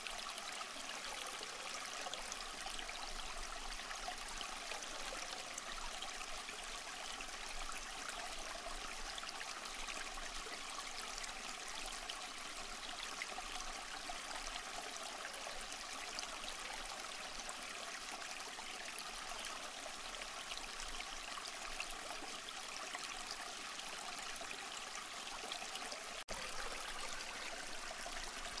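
Steady rush and trickle of an aquarium's circulating water, cut off for an instant near the end.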